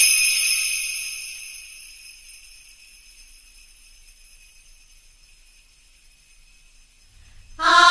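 A bell-like chime struck once, its high ringing tones fading slowly over about five seconds. Music comes in near the end.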